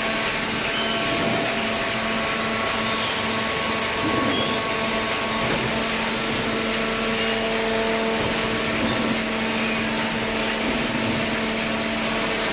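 Steady machinery noise with a constant hum, unbroken throughout.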